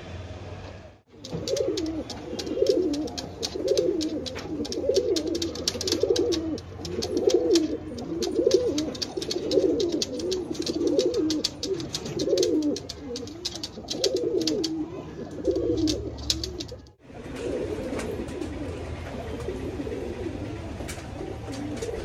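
Domestic high-flyer pigeons cooing over and over in a steady run of low, rolling coo phrases, with many sharp clicks alongside for most of the stretch. The sound drops out briefly twice.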